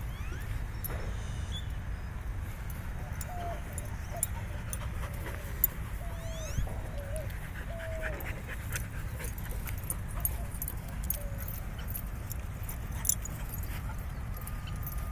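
A dog whimpering: a string of short, high whines through the middle, over a steady low rumble.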